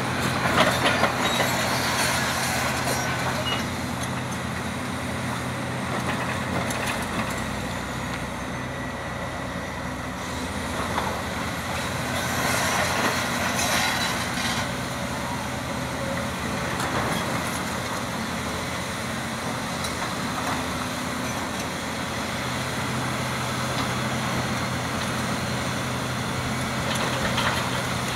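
Heavy diesel excavator engines running steadily under load, with scraping and clattering of steel on rock as the Hitachi Zaxis 470 rips rock. The clatter comes in bouts, loudest just after the start and around the middle.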